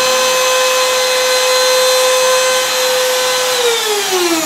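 Handheld laminate (trim) router with a top-bearing bit running at full speed, a steady high-pitched motor whine. About three and a half seconds in it is switched off, and the whine falls in pitch as the motor spins down.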